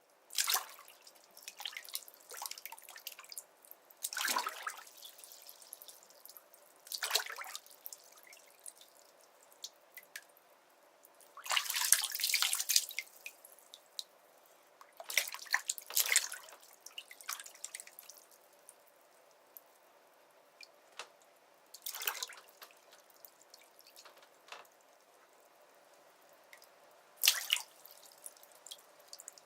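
Water in a bathtub splashing and sloshing in irregular bursts a few seconds apart, with quiet gaps and scattered drips between.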